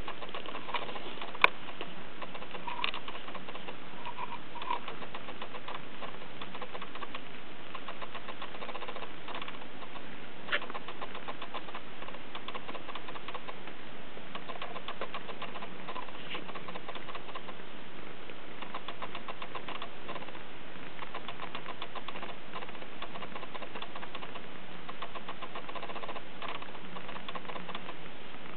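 Three-week-old Persian kittens giving a few faint, short squeaky mews over a steady, rapid ticking, with one sharp click about a second and a half in.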